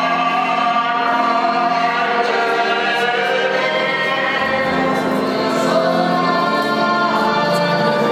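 Group of voices singing a slow hymn in long held notes over a steady low sustained tone.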